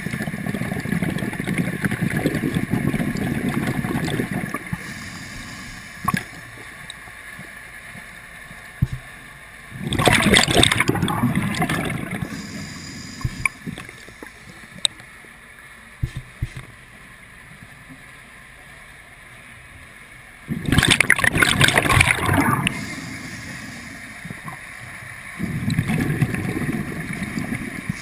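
Scuba diver breathing through a regulator underwater: loud bursts of bubbles gurgling, four times, with quieter stretches between.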